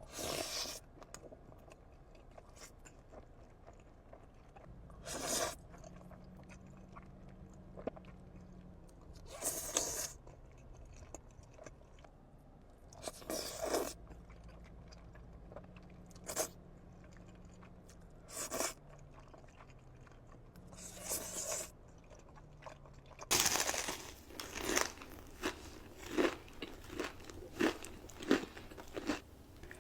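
Close-miked eating: crunchy bites and chewing in separate bursts every few seconds, then rapid, steady crunching for the last several seconds.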